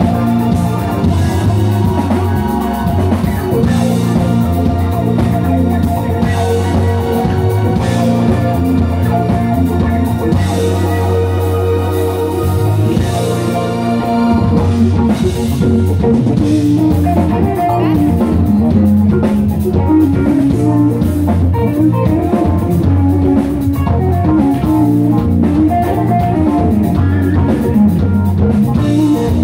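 Live band playing: drum kit, electric guitar, bass guitar and keyboards, amplified and loud.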